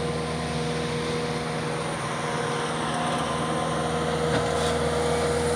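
A motor running steadily at a constant pitch, with an even hum and a held whine above it.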